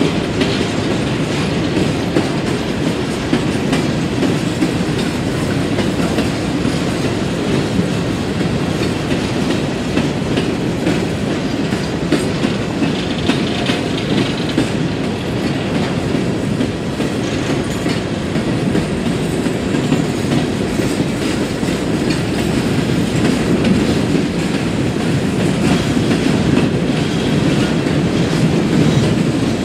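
Empty CSX coal hopper cars rolling past at close range: a steady rumble of steel wheels on rail with a continuous clickety-clack, growing a little louder near the end.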